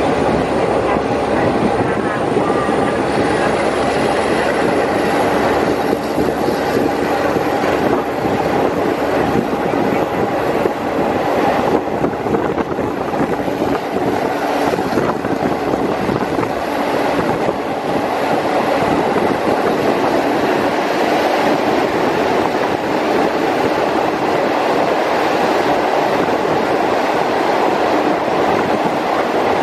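Steady running noise of a Thai SRT ordinary passenger train at speed, heard from on board: its wheels rumble on the rails without a break.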